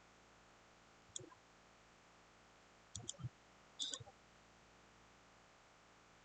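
Computer mouse clicks: a single click about a second in, two around three seconds, and a quick cluster near four seconds.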